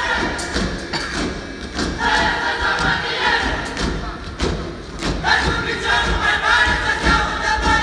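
Folk dancers' feet stamping on a wooden stage in repeated thuds, under a group of women singing long, high held phrases, with the folk orchestra playing along.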